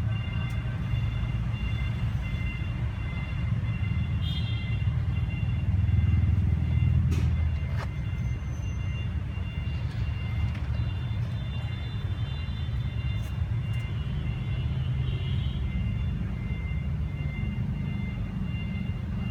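Low, steady rumble of motor-vehicle traffic, swelling about six seconds in as a vehicle passes close by, with a faint high steady whine above it.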